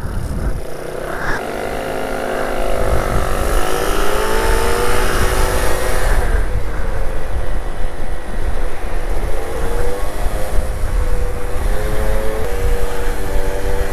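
Peugeot Jetforce C-Tech scooter's two-stroke engine pulling away from a stop, its pitch rising over the first few seconds and then holding fairly steady at cruising speed. Wind rumbles on the microphone.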